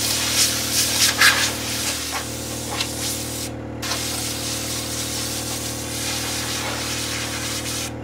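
Compressed air hissing from an air-hose blow gun as it blasts dust out of a backhoe's cylindrical air filter element, with a brief break about three and a half seconds in. A steady low machine hum runs underneath.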